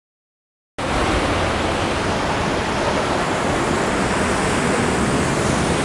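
Silence, then about a second in a steady rush of ocean surf and wind starts abruptly.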